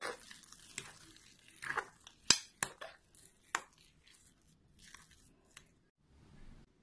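A utensil stirring and mashing soft sweet potato in a glass bowl: wet squishing and scraping with irregular sharp clicks against the glass, the loudest a little over two seconds in.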